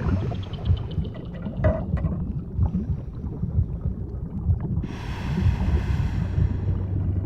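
Underwater ambience: a steady low rumble, joined about five seconds in by a hissing wash.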